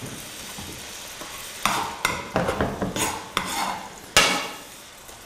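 Whole prawns and cherry tomatoes sizzling in a frying pan, stirred with a slotted spatula: a steady sizzle, then from about two seconds in a run of scraping strokes of the spatula through the food and against the pan, with one sharp knock on the pan about four seconds in.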